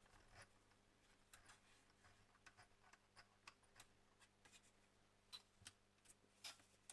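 Near silence with faint, irregular small clicks and taps from handling the mini sewing machine and paper, a few slightly louder ones near the end.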